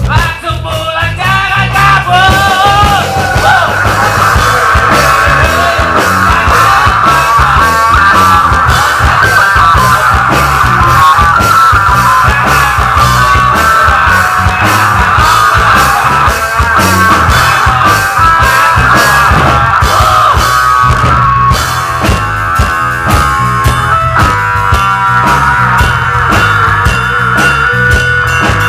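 Live rock band playing loud: electric guitar with bending, gliding lead lines over a drum kit and bass, continuous throughout.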